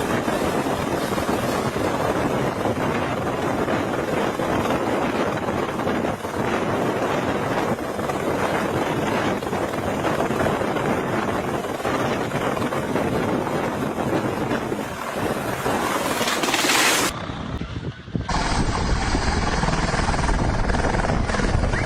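Helicopter noise heavily buffeted by wind on the microphone, a dense steady rush. About 17 seconds in it cuts abruptly to another recording with a strong deep rumble.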